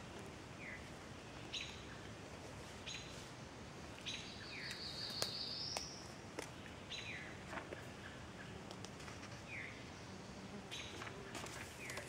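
Several forest songbirds singing: short notes repeating about every second and a half, and one longer, rising song about four seconds in, the loudest sound here.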